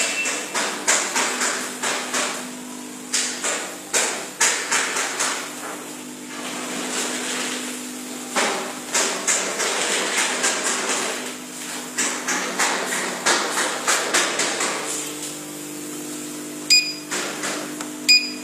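Steady electrical hum of a body RF slimming machine, with irregular knocks and rubbing as the corded handpiece is worked over the skin. Two short beeps near the end as the machine's touchscreen is pressed.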